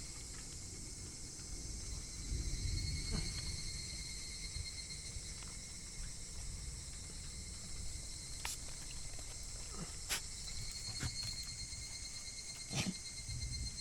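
Steady, high-pitched insect chirring in the background, with a few sharp clicks and some low rumbling now and then.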